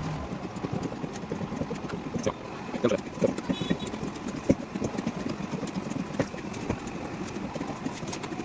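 A run of irregular light knocks and clicks from dent-repair work on a car's body panel, over a steady background hum.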